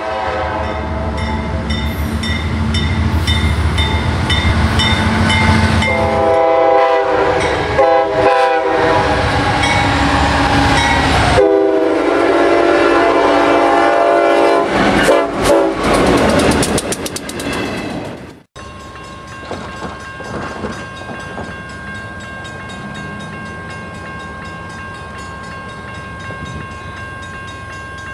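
Diesel locomotive horns blowing loud multi-note chords, the chord changing several times, with a crossing bell ringing about twice a second at the start. About eighteen seconds in the sound cuts off abruptly and gives way to the quieter rumble of an approaching freight train, with two steady high tones held over it.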